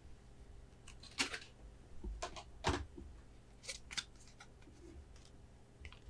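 Hands handling Pokémon promo cards, card stands and their packaging: a scattering of short clicks and brief scraping rustles, the loudest about a second in and near the three-second mark.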